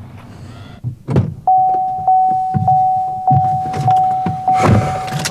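A car's warning chime dinging steadily, re-struck a little under twice a second, with a loud thump about a second in and another near the end, like a car door being opened and shut.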